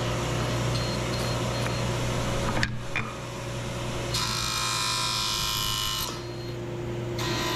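Sliding table saw running with a steady motor hum, its blade plowing away tenon-cheek waste as a poplar board is pushed sideways against it. A harsher, higher cutting sound comes in about four seconds in and lasts about two seconds.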